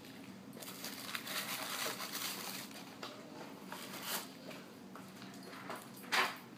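Tissue paper rustling and crinkling as a miniature doll guitar is handled and pulled out of its wrapping, with one brief louder rustle near the end.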